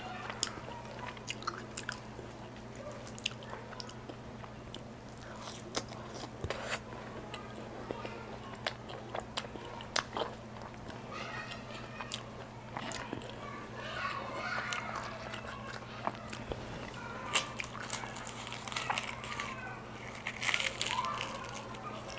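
Close-miked eating: biting and chewing with irregular crisp clicks, crunches and wet mouth sounds, over a steady low hum.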